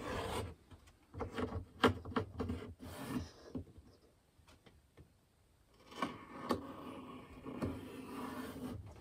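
Pencil scribing tool dragged along the edge of a wooden cabinet panel, scratching and rubbing on the wood: a run of short scratches and knocks, a pause, then a steadier rub for the last three seconds.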